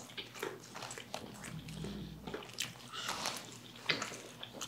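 A person chewing crispy fried chicken, with irregular crunches and wet mouth clicks.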